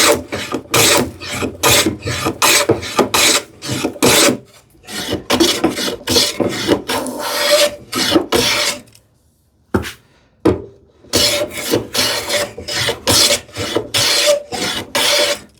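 Hand plane shaving the edge of a wooden drawer front in quick, repeated strokes, about two a second, to fit it to its opening. The strokes pause briefly about four seconds in, and stop for a couple of seconds near the middle, where two short knocks sound.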